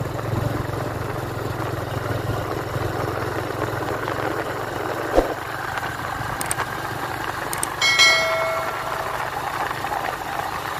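Vehicle engine running steadily while riding, with road noise. A sharp click comes about five seconds in, and a short bell-like ding about eight seconds in that fades within a second; these are the sound effect of the subscribe-button overlay.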